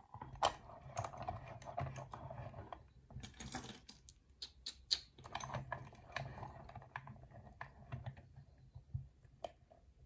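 Irregular small clicks and knocks of a brass lock cylinder being handled and clamped into the jaws of a metal lockpicking vise.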